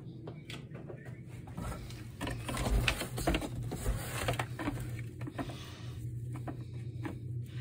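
Handling noise: irregular taps, knocks and rustles of objects moved and rubbed right against the phone's microphone, over a steady low hum.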